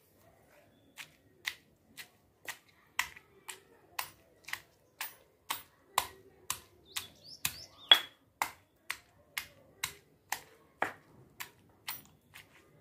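Stone pestle pounding chopped tomatoes and green chillies in a stone mortar: sharp, regular knocks about twice a second.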